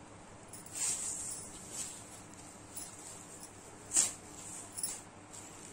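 Silk saree fabric rustling as it is handled and unfolded by hand: a few short swishes, the sharpest about four seconds in.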